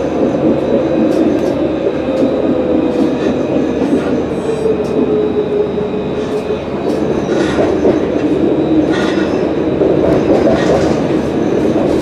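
Alstom Citadis 302 tram running, heard from on board: a steady rumble of wheels on rail with a whine that falls slightly in pitch over the first few seconds. There are scattered sharp clicks and two brief higher squeals past the middle.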